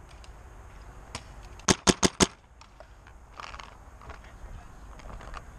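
Paintball marker firing a quick burst of four sharp shots about two seconds in, followed by a few fainter pops.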